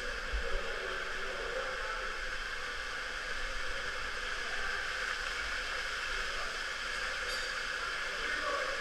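Waterfall falling inside a cave: a steady rush and hiss of pouring water and spray.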